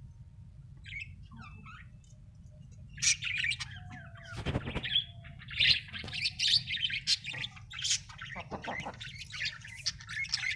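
Parrots chirping and squawking: a few faint calls at first, then a busy run of short, harsh calls from about three seconds in.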